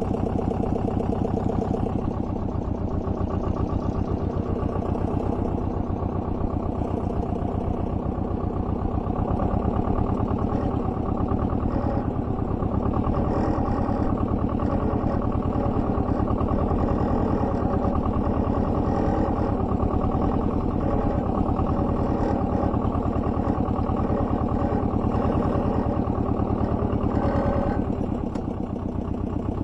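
Small tractor's engine running steadily while it pulls a multi-tine subsoiler through the soil. The engine gets a little quieter near the end.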